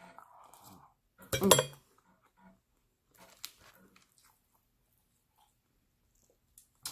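Cutlery and dishes clinking during eating, with a short loud clatter about a second and a half in and scattered lighter clicks after it.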